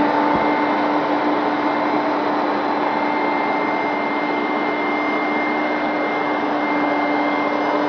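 Hoover Max Extract 77 carpet cleaner running steadily: a rush of suction with a steady motor whine.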